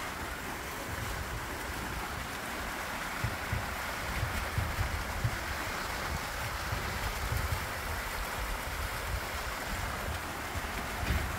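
Small pond fountain jets splashing steadily, a constant watery hiss. Gusts of wind rumble on the microphone.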